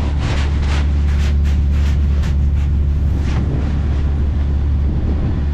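Shrimp trawler's diesel engine running with a steady low drone. During the first three seconds there is a quick series of short scraping sounds, about three a second, over the engine.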